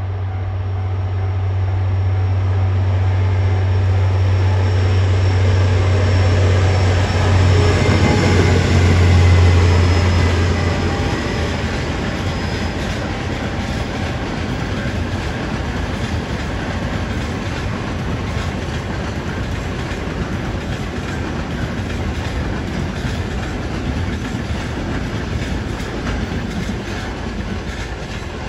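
A freight train hauled by a JR Freight DF200 diesel-electric locomotive passes. The locomotive's steady low engine drone is loudest about ten seconds in and ends soon after. The long string of wagons then keeps rolling by with a steady clatter of wheels on the rails.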